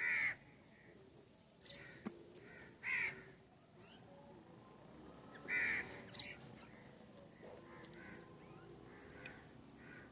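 Bird calls: three loud short calls, about three seconds apart, with fainter calls in between.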